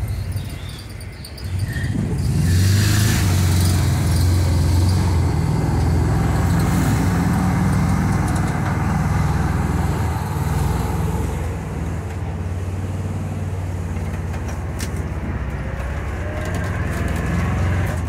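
VW Kombi van driving, heard from the back of the open-topped body: the engine runs steadily and picks up about two seconds in, with road noise. A few sharp clicks near the end are taken to be the creaking bodywork, the noise being hunted for.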